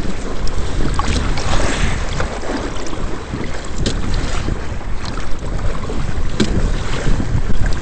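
Hull and outriggers of a Hobie Adventure Island sailing kayak-trimaran rushing through 2 to 3 ft chop, water splashing along the sides with a few sharp wave slaps, under heavy wind buffeting on the microphone.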